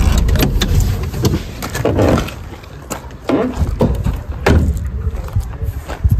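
A car engine running, then cut off about a second in, followed by several clicks and knocks as the driver's door is opened and he climbs out.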